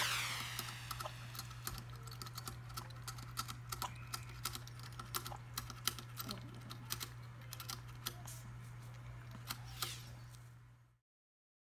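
Shih Tzu puppy licking the steel ball-valve nozzle of a crate water bottle: rapid, irregular clicks and taps of tongue and ball on the spout, over a steady low hum. A brief whoosh right at the start, and everything cuts off near the end.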